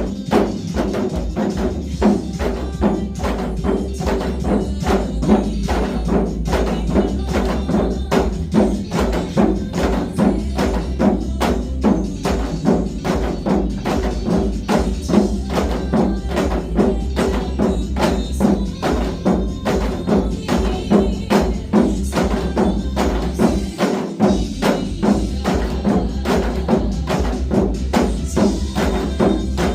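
Group of janggu (Korean hourglass drums) struck in a steady basic rhythm along with a disco-style backing track played loudly.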